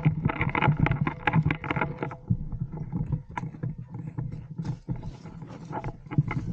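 Close rustling and knocking of clothing, gear and the body-worn camera as an airsoft player moves on foot through grass, heaviest in the first two seconds and again near the end, quieter in between.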